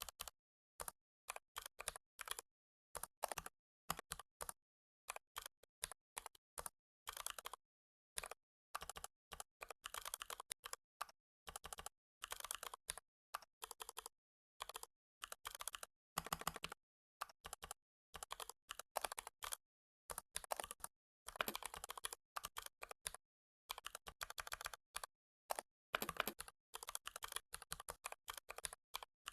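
Typing on a computer keyboard: runs of quick key clicks in irregular bursts, with short gaps of complete silence between them.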